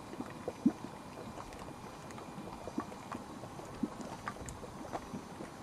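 Hot mud pool bubbling: irregular plops as gas bubbles burst through the thick grey mud, a few a second.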